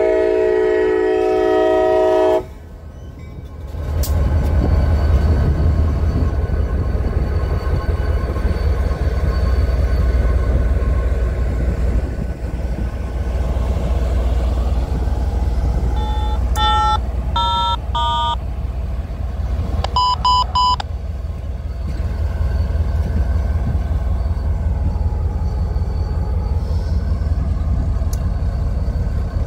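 A diesel locomotive horn sounds a chord that cuts off about two seconds in. Then a freight locomotive and the FRA track inspection cars roll past close by with a steady low rumble of engine and wheels. Around the middle come four quick high toots and then one more.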